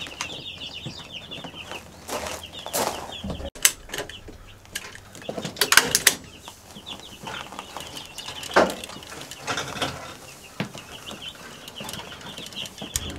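A hand staple gun snaps several times as it drives staples through chicken wire into the wood of an old dresser. The loudest snaps come in a quick cluster about six seconds in, with another about two and a half seconds later. Young chicks peep continually behind it.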